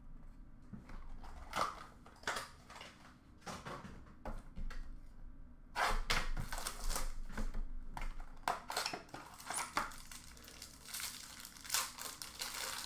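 Hockey card pack wrappers being torn open and crinkled by hand, in irregular scratchy rasps that come thickest in the second half.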